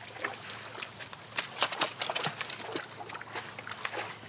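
Dry grass thatch rustling, with irregular light knocks and clicks against the wooden frame of a grass-brushed duck blind as it is handled from a boat.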